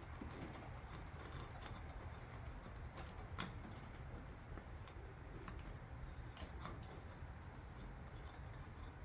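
Scattered, irregular light clicks and taps of hand tools on metal while bolts are worked out of the engine, with one sharper click a few seconds in.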